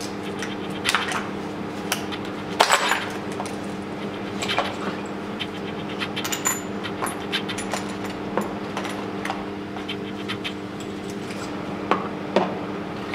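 Metal hand tools clinking and tapping against the cylinder head of a VW 2.0 TDI diesel engine as fittings are worked in and out of the glow-plug holes for a compression test. There is a steady hum underneath. The loudest clatter comes about two and a half seconds in, with scattered single clicks after it.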